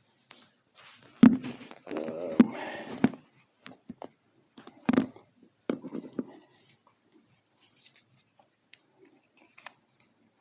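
A plastic action figure and its packaging handled by hand: irregular sharp clicks and knocks with some rustling, thinning out to scattered light ticks in the second half.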